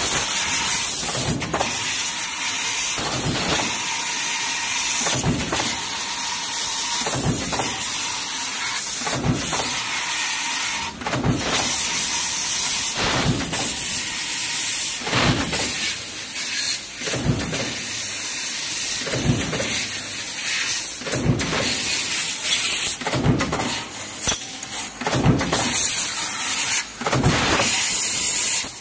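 Punch press with a progressive die stamping sheet-metal junction boxes, a stroke about every two seconds, over a steady high hiss.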